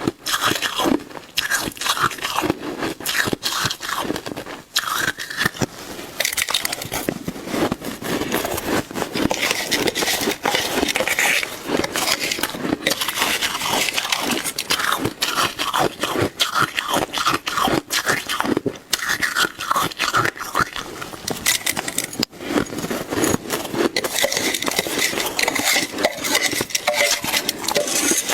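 Shaved ice being bitten and chewed up close, a dense, continuous run of crackling crunches.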